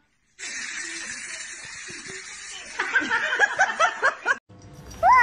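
A person snickering in a quick run of short laughs, after a couple of seconds of steady hiss.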